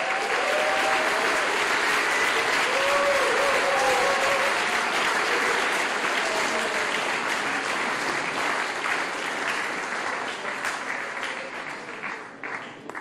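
Audience applauding, breaking out suddenly at the end of a performance, with a few cheering voices early on the crowd noise; the clapping thins out to scattered claps near the end.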